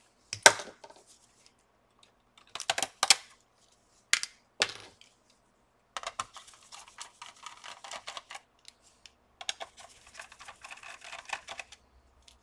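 Small screws being taken out of an HP Pavilion dv6000 laptop's plastic top case with a screwdriver: a few sharp clicks of metal on plastic, loudest about half a second and three seconds in, then two stretches of fine ticking and rustling as hands work over the case.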